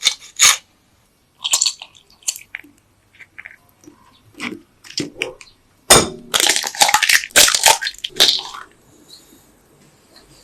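Food-preparation noises: scattered crunching and scraping strokes, then a dense run of rapid crunches from about six seconds in that fades near the end.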